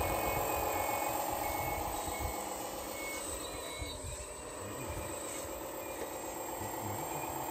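Scale RC wheel loader (1/14 CAT 980L) running its simulated diesel engine sound, with short reversing beeps repeating about once a second while it backs up; the beeps stop about three and a half seconds in as it changes direction.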